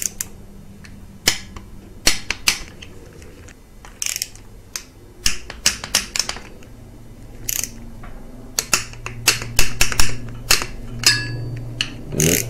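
Socket ratchet and click-type torque wrench working engine bracket bolts: irregular sharp clicks and quick runs of ratchet clicking throughout, loudest a little before ten seconds in.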